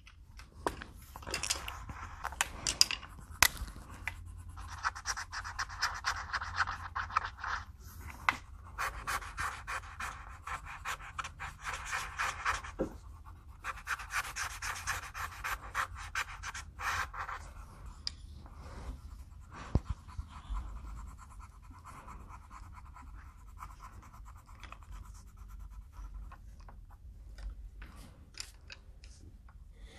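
Coloured pencil and felt-tip marker scratching on paper over a clipboard: quick back-and-forth colouring strokes in several stretches, fainter in the second half, with a few light taps.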